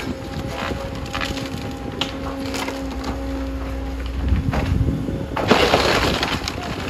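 Caterpillar 325F excavator tearing into a wood-frame house wall with its bucket: the machine's engine and hydraulics hum steadily while boards and siding crack and splinter. About five and a half seconds in comes a louder, roughly second-long crash as a section of wall breaks away.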